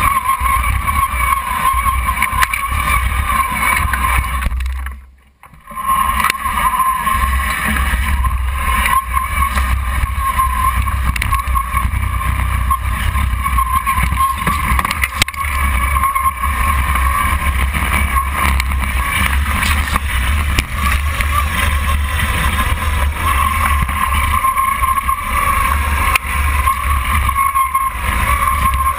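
Drive and tracks of a homemade radio-controlled tracked vehicle running, heard from a camera on its hull: a steady low rumble with a whine on top. The sound drops away for about a second roughly five seconds in, then carries on.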